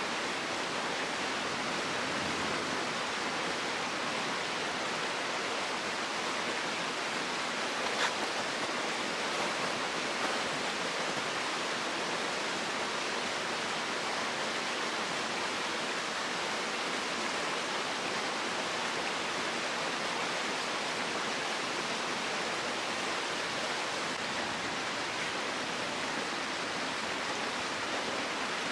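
Mountain stream rushing steadily over rocks, with a sharp click about eight seconds in and a fainter one shortly after.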